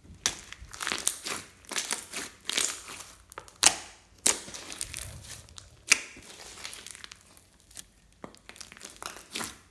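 Hands squishing and stretching glossy bead-filled slime, making a busy run of sticky clicks, pops and crackles as trapped air bursts, with a few louder pops.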